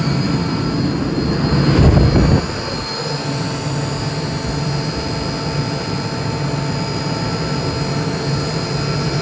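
Atlas Copco GA11FF 11 kW direct-drive screw air compressor running with its covers off: a steady machine drone from the electric motor and screw air end, with a faint high whine. About two seconds in, a brief loud rushing noise swells and then cuts off suddenly.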